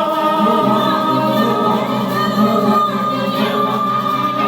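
Live music for a Hindi film song: one long note held steady over a layered backing.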